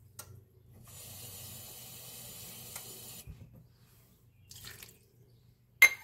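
Water running steadily for about two seconds as half a cup of water is measured out, then a sharp clack near the end as a metal measuring cup is set down on the counter.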